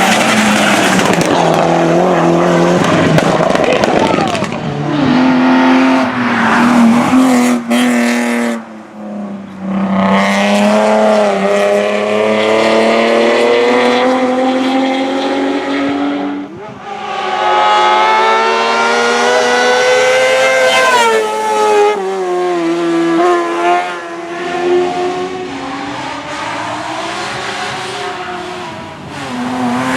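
Racing car engines revving hard at a hill climb, the note climbing and dropping with each gear change and lift-off, with tyre squeal, as cars accelerate past one after another.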